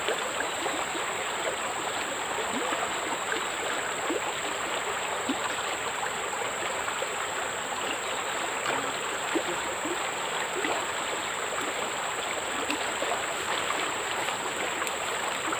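Steady rushing of flowing stream water, with a few faint small ticks scattered through it.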